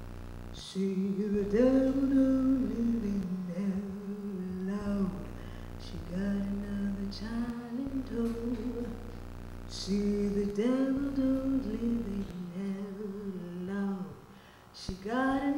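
A woman singing a slow melody unaccompanied, holding long notes and stepping between pitches.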